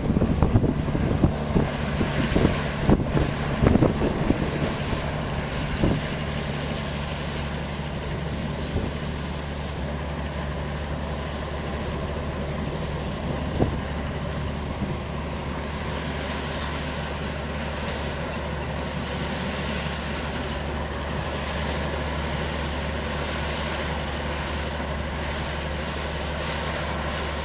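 Wind buffets the microphone in gusts for the first six seconds or so. After that comes the steady low drone of the cargo ship Fingal's engine as it passes, under light wind noise.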